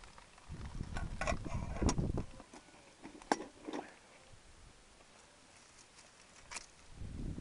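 Light knocks and clicks of a small camping pan and its lid being handled, clustered over low rumbling in the first two seconds. A few isolated sharp clicks follow later.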